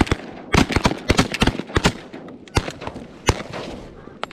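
A volley of shotgun fire from several hunters' semi-automatic shotguns, many overlapping shots in rapid succession. About two seconds in the firing thins out to a few separate last shots.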